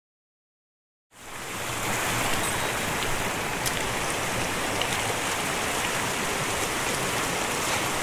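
Mountain stream running over rocks, a steady rush of water that fades in about a second in after total silence.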